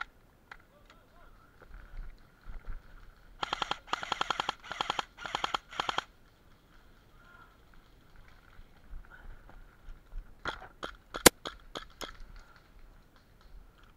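An airsoft rifle firing about five short full-auto bursts, each a fast run of evenly spaced clicks. Later comes a quick string of single sharp airsoft shots, one of them much louder than the rest.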